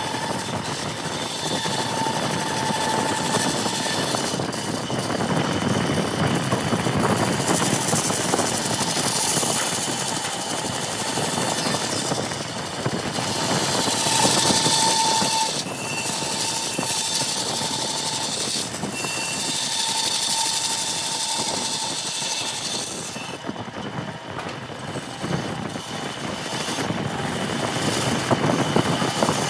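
Bandsaw running and cutting through a wooden block, the sound swelling and easing every few seconds as the block is fed into the blade for each straight relief cut and drawn back.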